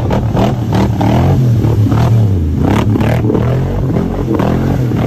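Off-road vehicle engine revving hard under load as it ploughs through deep muddy water, with water splashing and clattering against it.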